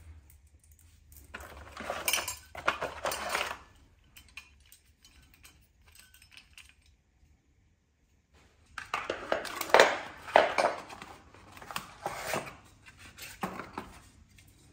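Metal TV-mount brackets being lifted out of their cardboard box and handled, clinking and rattling against each other and the packaging in two bursts, a short one a couple of seconds in and a longer one in the second half, with light handling noises between.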